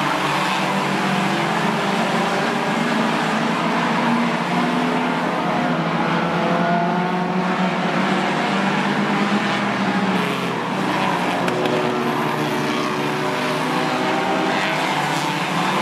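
A pack of four-cylinder Slinger Bees stock cars racing, several engines running at once with overlapping pitches that rise and fall as the cars pass and go through the turns.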